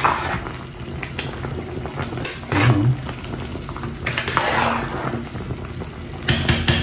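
Pot of coconut-milk chicken curry bubbling at a boil, with a few clinks of a utensil against the pot.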